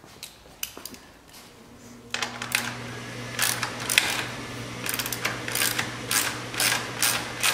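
Ratchet wrench clicking in repeated short strokes, about two a second, as the bolt is worked out of the Aerolite 103 ultralight's lower tail-boom tube. A steady low hum, the furnace running, comes on about two seconds in.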